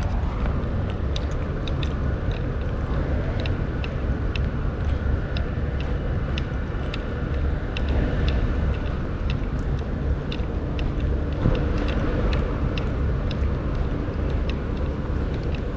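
Steady low rumble of city road traffic, with light ticks about twice a second.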